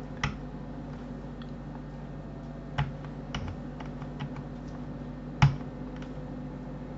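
Computer keyboard keys clicking as they are pressed one at a time, among them the numpad slash key, over a steady low hum. Scattered separate clicks, three of them louder: just after the start, near three seconds and about five and a half seconds in.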